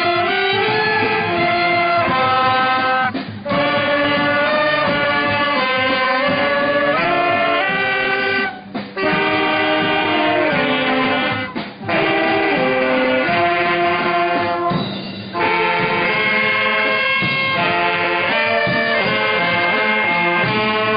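Marching brass band of saxophones and trumpets playing a tune in held notes, with a few short breaks between phrases.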